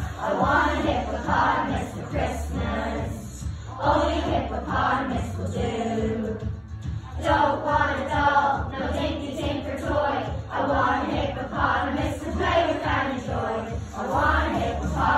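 A choir of children singing a Christmas carol together over instrumental accompaniment, in continuous sung phrases.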